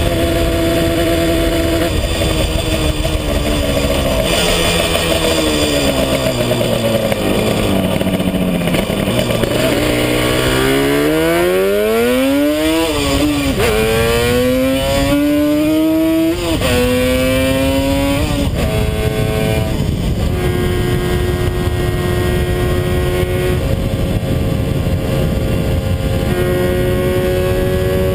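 1975 Yamaha RD350's two-stroke parallel-twin engine, heard from on the bike with wind rush. Its pitch falls as the bike slows down. It then accelerates, rising in pitch through several quick upshifts, and settles into a steady cruise for the last several seconds.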